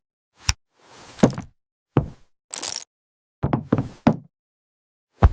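A string of irregular knocks and taps, some sharp and some duller, with a brief high hiss about halfway through.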